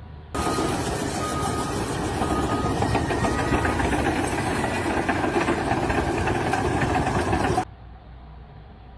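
Heavy construction machinery running with a dense rattling clatter, and a repeating backup-alarm beep about once a second. The sound starts abruptly just after the beginning and cuts off suddenly about a second and a half before the end.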